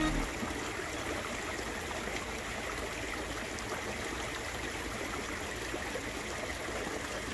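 Steady running water in a backyard koi pond, a constant trickle and rush of water flowing in.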